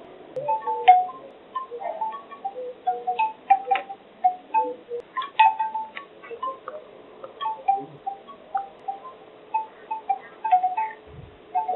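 Bamboo wind chimes clacking in the breeze: irregular short, hollow wooden tones in clusters, with a faint steady hum beneath.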